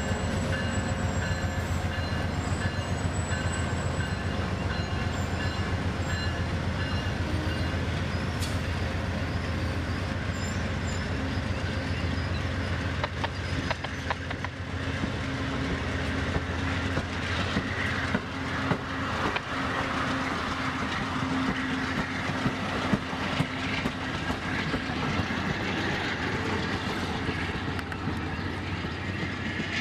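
Amtrak passenger train passing close by: the diesel locomotive's low engine drone fades through the first half as it moves away, then the coaches roll past with a steady rumble and the clatter of wheels on the rail joints.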